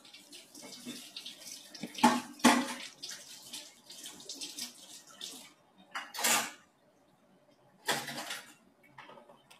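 A person eating food off a fork close to a phone's microphone: four short, noisy slurps among quieter chewing and handling sounds, with a faint click of the fork about two seconds in.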